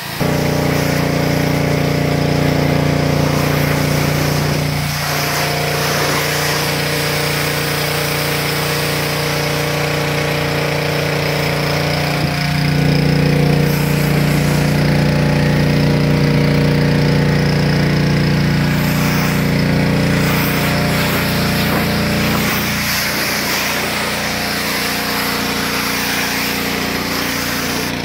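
Pressure washer running steadily, its motor and pump humming under the hiss of the water jet spraying onto a car's body.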